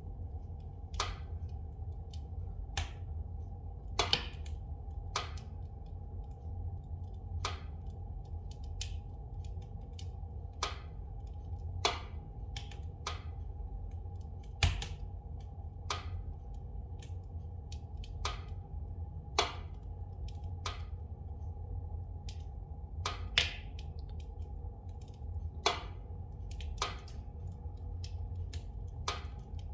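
Spruce-wood fire in a fireplace crackling, with sharp, irregular pops every second or two over a steady low rumble.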